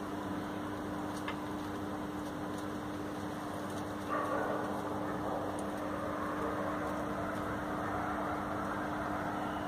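A stray puppy barking briefly about four seconds in, over a steady low hum.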